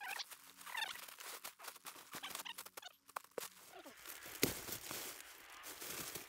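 Faint handling noises of a folding camp cot on a tarp floor: rustling, a few short squeaks and small clicks, with one sharp click about four and a half seconds in.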